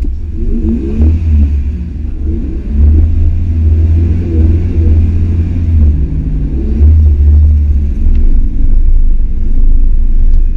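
Off-road vehicle's engine revving under load with a heavy low rumble, its pitch rising and falling as it works through deep mud.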